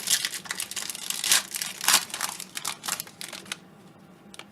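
Trading card pack wrapper being torn open and crinkled, a quick run of crackling and rustling that stops about three and a half seconds in.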